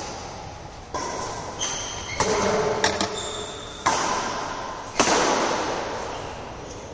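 Badminton rally: rackets striking the shuttlecock, about seven sharp hits roughly a second apart, each ringing on in the echo of a large hall. The loudest hit comes about five seconds in.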